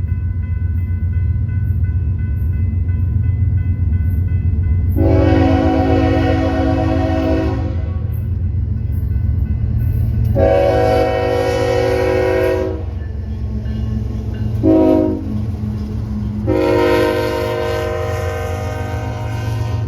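BNSF diesel freight locomotive's air horn sounding the grade-crossing signal: two long blasts, one short and a final long one. Under it is the steady low rumble of the diesel engines.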